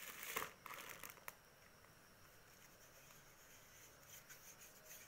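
Clear plastic packaging bag crinkling as it is handled, with a sharp click a little over a second in, then near silence.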